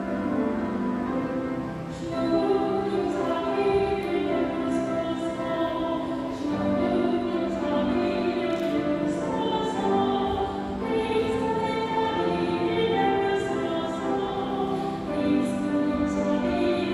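Choir and congregation singing a hymn of the Mass with instrumental accompaniment, in sustained held notes.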